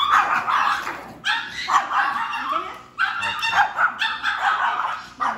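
Pomeranians barking over and over, sharp yappy barks following each other every half second to a second.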